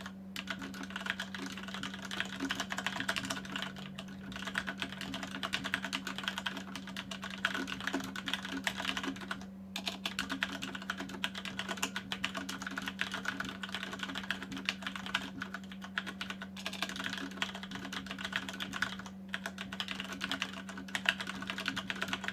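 Fast typing on a Cougar Attack X3 mechanical keyboard with Cherry MX Brown switches: a rapid, continuous clatter of keystrokes broken by a few brief pauses. A steady low hum runs underneath.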